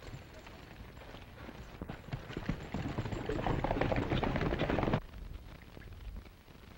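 Hoofbeats of several horses galloping away on a dirt yard, a dense clatter that grows louder and cuts off abruptly about five seconds in.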